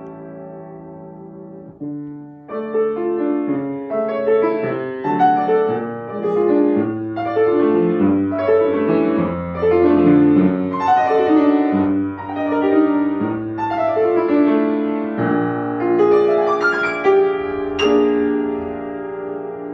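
Grand piano played solo: a held chord dies away for about two seconds, then a flowing passage of melody over chords picks up and runs on at a fuller volume.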